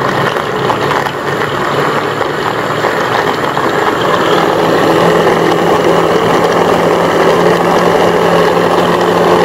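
Scarlett hand blender motor running on its chopper bowl attachment, its blades mincing raw chicken with tomato and green chilli. A loud, steady whir with a hum that settles to a steadier pitch about halfway through.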